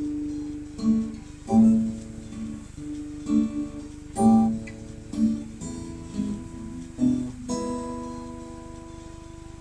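Acoustic guitar playing a slow tune in single plucked notes and light strums, ending on a final chord left to ring and fade out.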